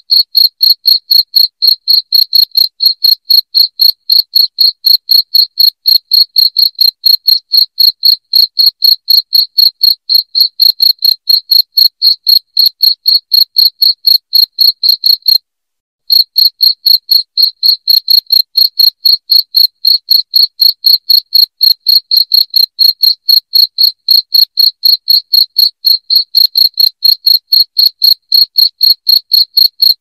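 Crickets chirping loudly in a fast, very even rhythm, about three high-pitched chirps a second, with a brief break about halfway through.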